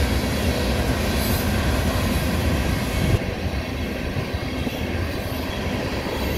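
Union Pacific freight train passing close by: the diesel locomotives go by with a heavy rumble. About three seconds in the sound turns duller, as the grain cars roll past on the rails.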